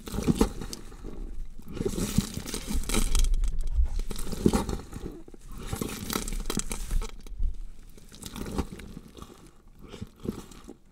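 Gore sound effect of a body being dissected: irregular wet crunching and tearing, like flesh and bone being cut and pulled apart, growing quieter over the last few seconds.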